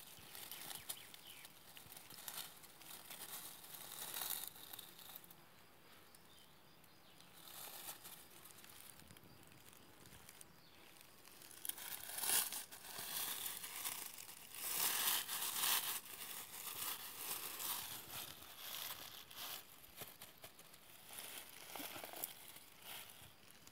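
Dry oak leaves and grass rustling and crackling under a hand digging in the leaf litter, with louder bursts about halfway through and again a few seconds later.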